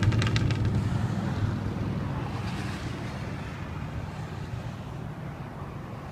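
Motorcycle engines passing and fading into the distance, a low drone dying away steadily.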